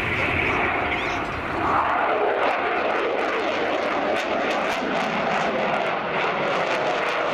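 Eurofighter Typhoon jet fighter's twin EJ200 turbofan engines running loud and steady through a display manoeuvre. About two seconds in, the deep rumble falls away and a ragged crackle sets in.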